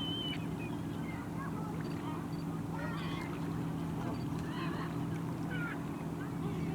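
A large flock of geese and ducks calling: many short, scattered honks and quacks overlapping over a steady low hum.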